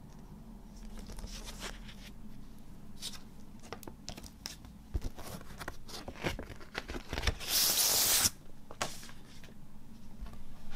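Paper and cardboard handled by hands: a vinyl LP's jacket and printed paper insert sliding and rustling, with scattered soft knocks. One louder sliding rustle of under a second comes about three-quarters of the way through.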